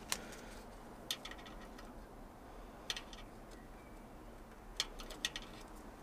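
A handful of small, sharp clicks and taps, spaced irregularly, from tools and small parts being handled at an open boiler's diverter valve while its washer is changed, over a faint steady background hum.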